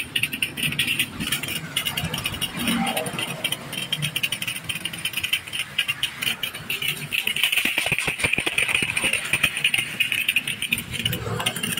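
Pressure-washer jet spraying across the aluminium fins of a radiator core: a steady hiss with a rapid crackle as the water strikes the fins, washing dirt out of the core.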